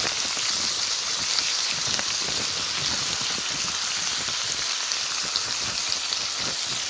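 Chopped chicken fillet and champignon mushrooms sizzling in oil in a frying pan: a steady hiss with scattered small pops and crackles.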